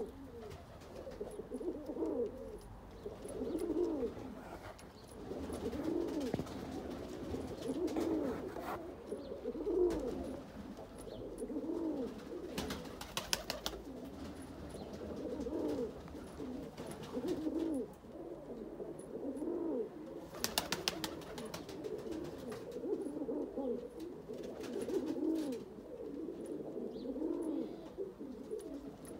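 Kamagar pigeons cooing, a low rolling coo repeating every second or two. A few short bursts of quick clicks come near the middle and again about two-thirds through.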